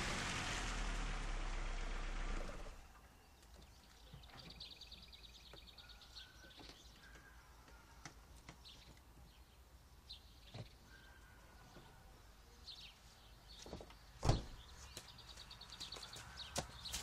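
A vehicle's engine noise fades away in the first few seconds. Then come faint outdoor background and birds chirping and twittering in short trills, with a single sharp knock a little after two-thirds of the way through.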